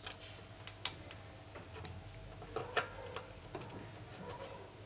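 Irregular light clicks and taps from small parts being handled as a faulty capacitor is fitted to a TV power-supply board, over a faint steady hum.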